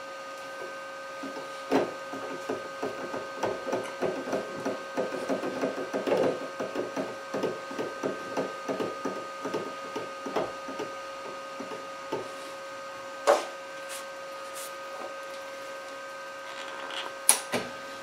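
Hand file stroking across a cast-iron lathe casting, about two strokes a second for roughly ten seconds, then stopping. A single sharp knock follows, then a couple of clicks near the end.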